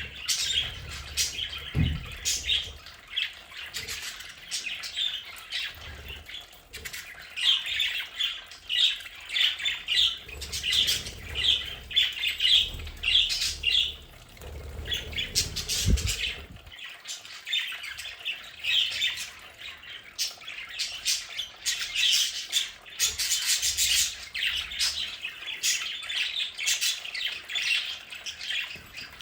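A flock of budgerigars chattering, warbling and squawking continuously in many short overlapping calls. A low rumble comes in briefly about two seconds in and again through the middle.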